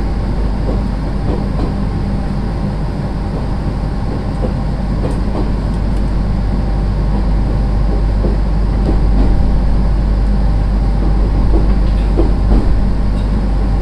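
A JR East 701 series electric train running, heard from inside the passenger car: a steady rumble with a faint motor hum.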